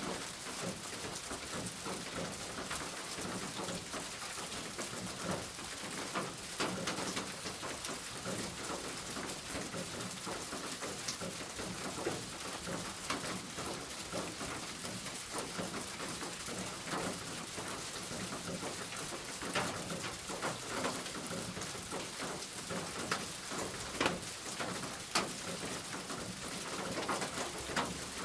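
Steady rain falling on a roof: an even hiss with scattered louder single drops striking now and then.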